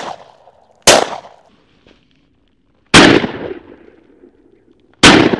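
Shotgun shots at flying doves. One shot is fading out right at the start, then three more ring out, about a second in, about three seconds in and near the end, each with a short echoing tail.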